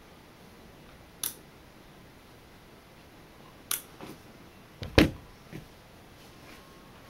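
A handful of sharp clicks from a hand working the knobs of a homemade PWM model-train controller, the loudest a click with a low thump about five seconds in.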